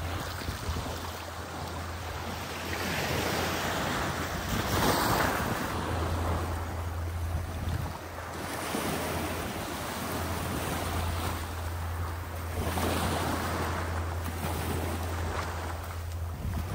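Small waves washing onto a sandy beach, the surf swelling and fading every few seconds, with wind rumbling on the microphone.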